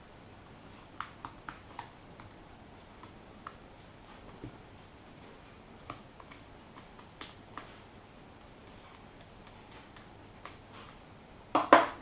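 Faint scattered clicks and light taps of a small screwdriver and tiny screws as three screws are backed out of a Samsung Galaxy Note N7000's internal frame. A louder double knock of small hard objects comes near the end.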